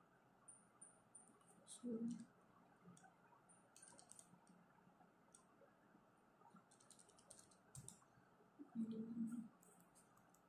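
Faint scattered clicks of calculator keys being pressed while a sum is worked out, with two short low hums, about two seconds in and again near nine seconds.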